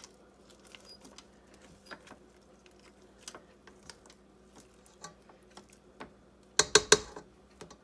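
Spatula scraping thick choux dough off the sides of a stainless steel stand-mixer bowl: soft scrapes and light taps, then near the end about a second of loud, rapid clattering strokes against the bowl.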